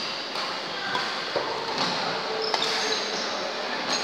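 Badminton rally in an echoing indoor hall: racquet strings striking a shuttlecock about once a second, with short high squeaks from shoes on the wooden court and background voices.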